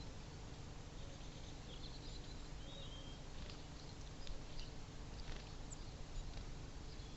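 Faint chirps of small birds at a feeder: a few short high calls and one brief wavering note about three seconds in, with a few light ticks, over a steady background hiss.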